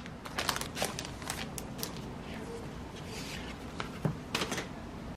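Paper and plastic wrapping rustling as a card-covered postcard book is slid out and handled: scattered crinkles and light taps, bunched near the start and again about four seconds in.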